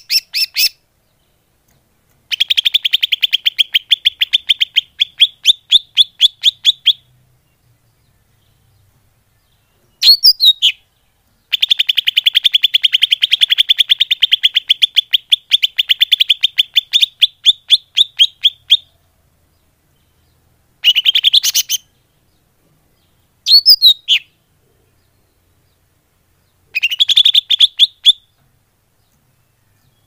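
Green leafbird (cucak ijo) lure call: rapid trains of sharp chirps, many a second, in bouts of a few seconds with silent pauses between. A short swooping note comes twice, once about a third of the way in and again past the middle.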